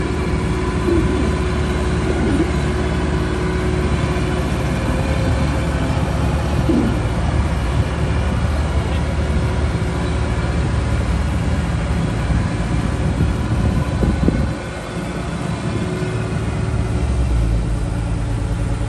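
Kubota rice combine harvester running steadily, its engine and threshing machinery making a continuous drone. The sound dips briefly about fourteen seconds in, then comes back.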